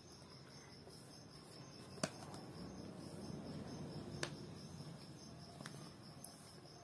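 Quiet room with a faint steady high-pitched whine, two soft taps about two and four seconds in, and faint rubbing as a paint-covered fingertip is pressed onto a paper workbook page.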